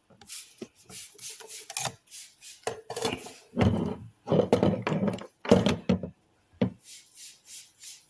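Metal-and-plastic smart-lock housing handled on a wooden tabletop: a series of rubbing and scraping strokes, heaviest in the middle, then lighter, quicker rubs near the end.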